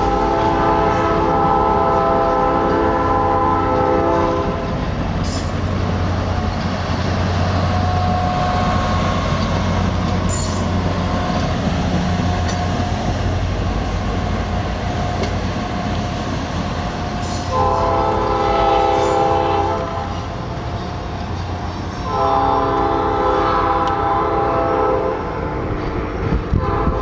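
A diesel locomotive's air horn sounds three long blasts: one at the start lasting about four seconds, then two more in the second half, over the steady low rumble of the running diesel train.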